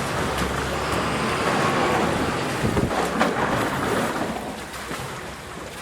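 A motor vehicle's engine rumbling under steady outdoor noise. The rumble fades about three seconds in, with a few scattered clicks.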